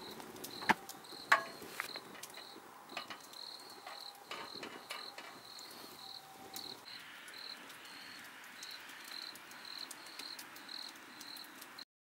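Crickets chirping in the night, a steady high chirp repeating about twice a second, with a few sharp clicks near the start. The sound cuts off suddenly near the end.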